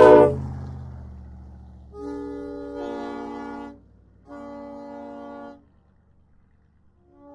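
Multi-note train air horns blowing. A loud blast cuts off right at the start and echoes away over about two seconds. Two quieter chord blasts follow, each lasting one to two seconds, and a short blast starts near the end.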